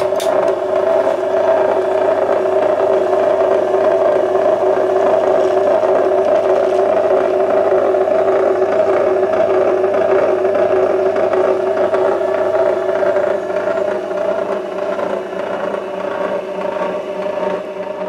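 Electric wire stripping machine switched on: its motor and geared steel rollers start with a click, then run with a steady whir and rattle. The sound cuts off suddenly at the end.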